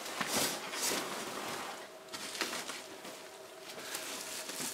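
Plastic bubble-wrap packing rustling and crinkling as it is handled, busiest in the first two seconds and then dying down to light rustles.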